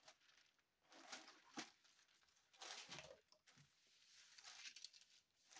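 Faint rustling of parchment paper as hands smooth it flat, in a few short, soft brushes.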